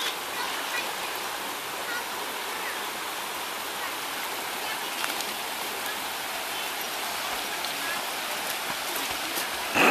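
Steady rush of a creek's flowing water, with a young dog splashing as it paddles through it. A louder burst of splashing comes near the end.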